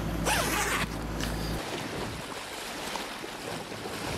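Rustle of canvas boat covers brushing the microphone over a low steady hum that stops about one and a half seconds in, followed by steady wind and water noise.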